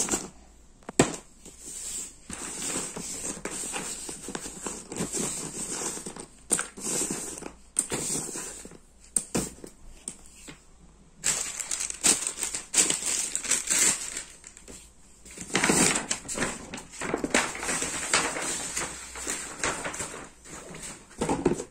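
Loose cardboard jigsaw puzzle pieces being swept by hand across a paper-covered surface and into the puzzle box: a clattering, scraping rustle that comes in bursts with short pauses between.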